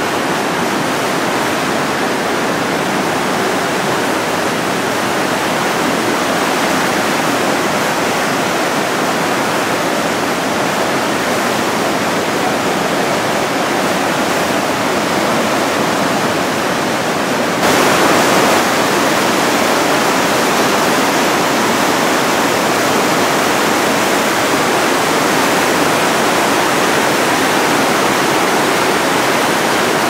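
Glacial river white water rushing and churning through a narrow lava gorge at the Barnafoss waterfall: a steady, dense rush that becomes louder about halfway through.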